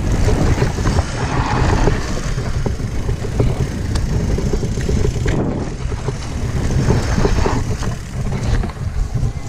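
Mountain bike descending a rough trail: wind buffets the microphone, and the tyres and frame rattle continuously over the ground.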